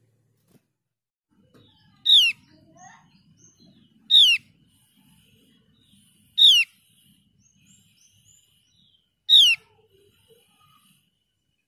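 Javan grey-throated white-eye (opior jawa) giving four loud, sharp calls about two to three seconds apart, each a quick note falling steeply in pitch.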